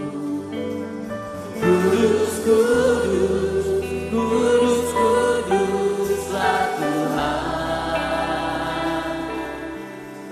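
Gospel worship music from a live band, with a choir singing long held notes over steady bass notes.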